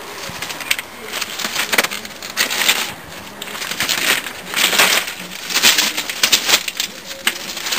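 Crunching footsteps on gravel rail ballast, an irregular series of crunches at walking pace.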